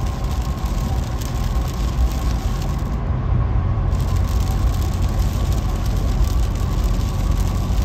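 Steady drive noise heard inside a vehicle on a wet freeway in heavy rain: low engine and tyre rumble mixed with the hiss of rain and road spray.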